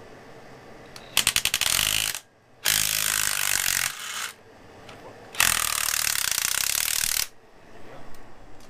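Impact wrench run in three bursts, hammering bolts loose. The first burst, about a second in, starts with rapid hammering, and the longest comes near the end.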